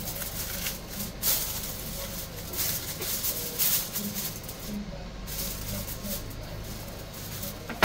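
Aluminium foil crinkling and rustling in uneven bursts as it is folded and crimped over the rim of a baking dish, with a sharp knock at the end.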